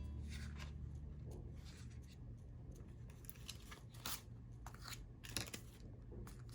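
Faint crisp rustling and crackling of paper being handled, in short bursts spread through, the sharpest about four seconds and five and a half seconds in, over a low steady hum.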